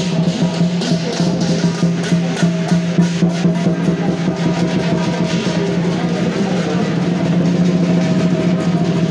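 Fast, dense drumming with a constant wash of cymbals over a steady low held tone, unbroken throughout.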